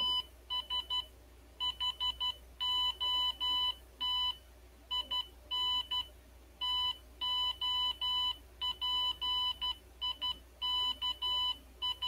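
Arduino Morse code auto keyer sending a typed message as Morse code: a single-pitch beep from a small speaker, keyed on and off in dots and dashes with longer gaps between letters and words.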